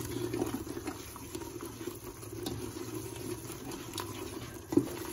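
Thick masala paste bubbling and spluttering in a pot while a wooden spoon stirs and scrapes through it, with a single knock near the end.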